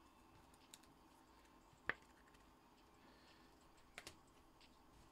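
A few scattered faint clicks and taps, the sharpest about two seconds in, over a low room hum.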